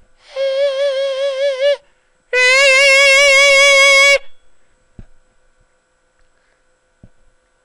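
A person's voice holding two high notes on the same pitch. The first lasts about a second and a half with a regular vibrato wobble. After a short break comes a louder, brighter, steady note lasting about two seconds, which cuts off sharply.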